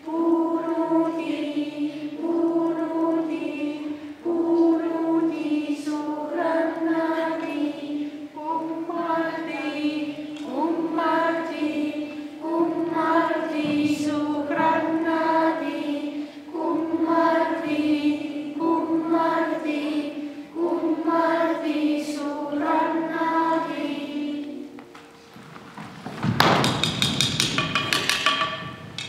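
A group of children singing a song together in unison, in short repeated phrases of a couple of seconds each. Near the end the singing stops and a brief, louder, bright-toned sound takes over.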